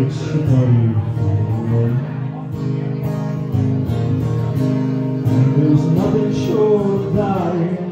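Live acoustic country song: an acoustic guitar strummed under a man singing, in two vocal phrases with a short gap between them.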